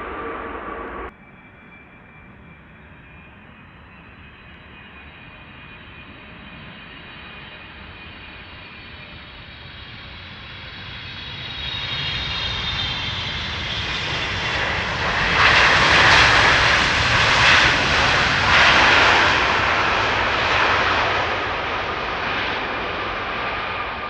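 Wide-body jet airliner on landing approach. Its engines grow steadily louder as it nears, peak in a loud rush with whining fan tones about two-thirds of the way through as it passes close by, then begin to fade. An abrupt cut about a second in ends the previous sound.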